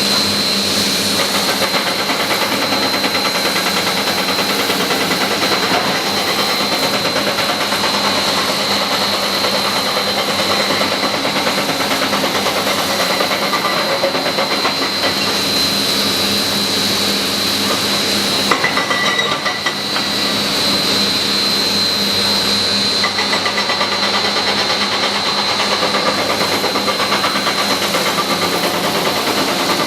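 Cat 321C LCR excavator's diesel engine running steadily, with a constant high-pitched whine over it. The sound drops briefly about two-thirds of the way through.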